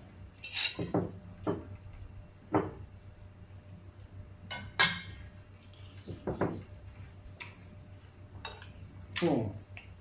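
A metal fork and spoon clinking and scraping on a ceramic plate of fried kway teow while it is eaten: a string of separate clinks, the loudest about five seconds in.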